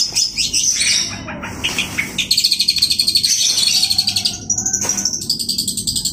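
Long-tailed shrike (cendet) in full song: a fast, varied stream of high chattering notes, with a rapid trill lasting about two seconds in the middle.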